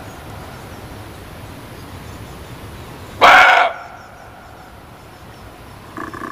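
Muntjac (barking deer) giving one loud, short bark about three seconds in, then a shorter, fainter call near the end, over a steady background hiss.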